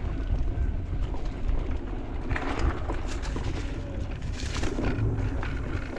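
Electric mountain bike riding along a dirt forest trail: a steady low rumble of wind and tyre noise, with scattered rattles and knocks from the bike. Two bursts of crunching hiss come about two and a half and four and a half seconds in.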